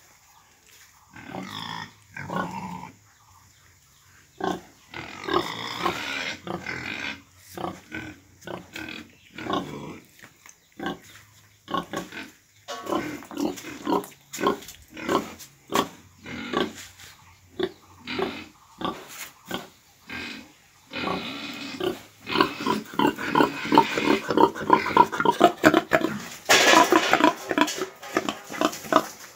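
Domestic pigs grunting in short, separate calls, getting busier and louder in the last several seconds, with one loud, harsh call near the end.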